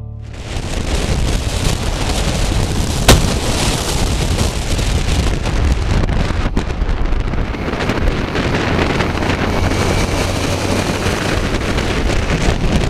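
Wind rushing over the microphone on a moving Kawasaki Versys 1000 motorcycle, a steady loud rush with low road rumble underneath. A single sharp knock sounds about three seconds in.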